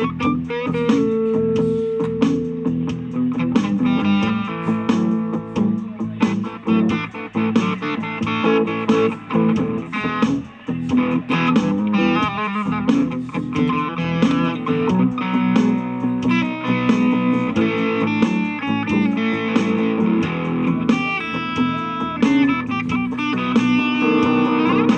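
Electric guitar played through an M-Vave BlackBox amp-simulation unit: vintage-style blues lines of picked single notes and held notes, recorded through a mobile phone's microphone.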